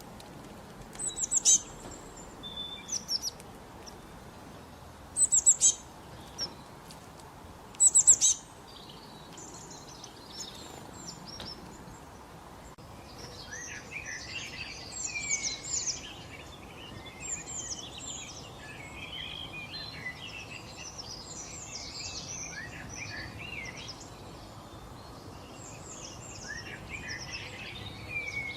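Wild birds calling and singing: several loud, sharp high chirps in the first few seconds, then a busy chorus of many birds chirping over each other from about halfway in.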